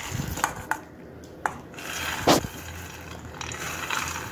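Sprouted green gram being scooped by hand off a steel plate and tipped into a mixer-grinder jar: soft rustle of the wet sprouts with a few light clicks, and one louder knock a little over two seconds in.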